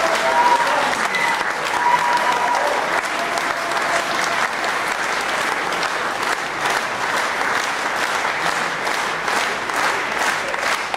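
Audience applauding, with the clapping falling into a steady beat in the second half.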